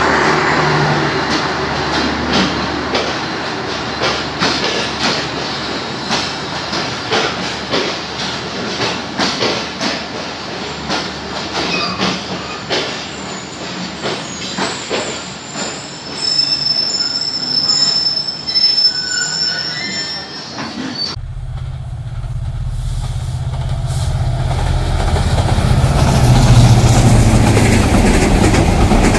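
Passenger train coaches rolling past a station platform as the train pulls in, the wheels clicking over rail joints, with a high squeal about two-thirds of the way through. Then, after an abrupt change, a low train rumble that grows louder.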